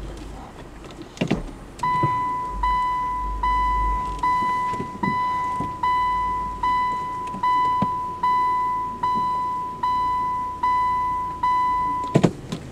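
A car's in-cabin reverse-gear warning beeper sounding thirteen times at an even pace, about one fading beep every 0.8 seconds, while the car is backed up on a tight bend. A short knock comes just before the beeping starts and another just after it stops.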